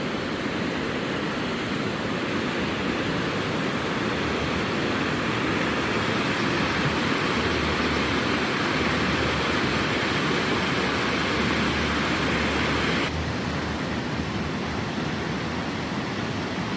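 Fast, high-running McKenzie River rushing under a footbridge: a steady roar of whitewater. About 13 seconds in the sound turns abruptly duller, losing its hiss.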